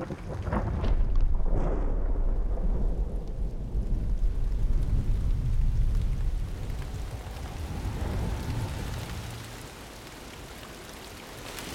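Long rolling thunder rumble over steady rain. The thunder builds within the first second or two, holds, then dies away about ten seconds in, leaving the rain.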